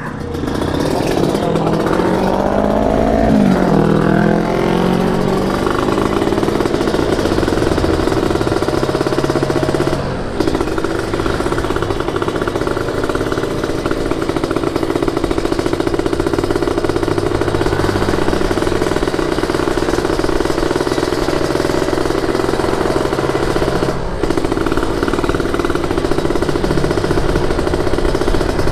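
Yamaha RX-King 135 single-cylinder two-stroke motorcycle engine pulling away, revving up over the first few seconds, then running steadily at cruising speed, with brief dips in the engine note about ten seconds in and again later on, as the throttle eases or a gear changes.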